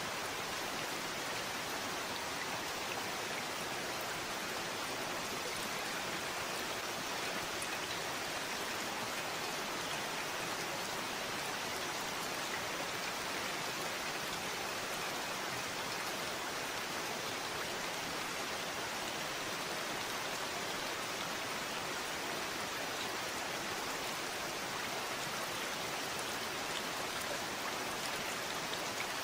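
Steady rain falling, a constant even hiss with fine patter of drops that does not change.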